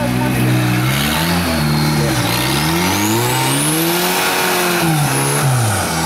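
Turbocharged Toyota engine in a rock buggy revving up and down in repeated blips under load on a rock climb, with one longer rev building to a peak about four seconds in and dropping off near the end. A faint high turbo whistle climbs with that long rev and falls away after it.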